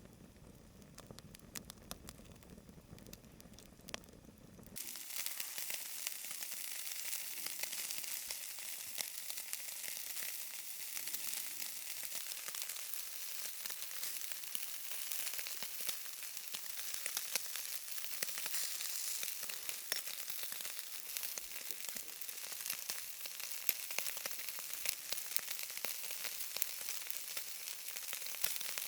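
Meat sizzling in a hot pan: a dense, steady hiss with fine crackles that starts abruptly about five seconds in, after a quieter opening with a low rumble and a few clicks.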